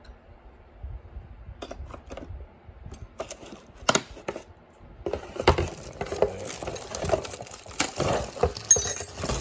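Steel wrenches clinking and clattering as they are handled. A few separate clicks come first, then a busier clatter from about halfway in, with some metallic ringing near the end.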